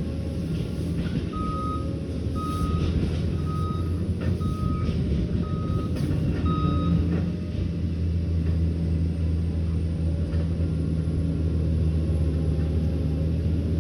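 Liebherr 744 crawler dozer running steadily, with its reversing alarm beeping six times, about once a second, in the first half as the machine backs up. Scattered knocks sound over the engine.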